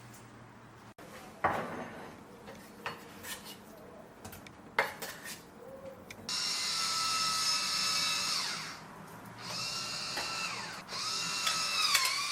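Small electric kitchen blender motor run in bursts: a steady whine for about two seconds that winds down in pitch as it stops, a shorter run that winds down again, and a third run starting near the end. Before it come a few light clicks and knocks.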